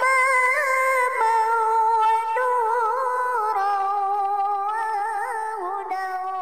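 A single voice sings long held notes that step slowly down in pitch, with small ornamental turns between them, easing off slightly toward the end.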